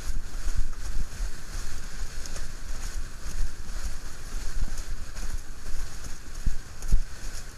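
Wind buffeting the microphone of a camera on a windsurf rig, over the hiss and rush of water under a Fanatic Falcon slalom board planing across chop, with a couple of sharper thumps near the end.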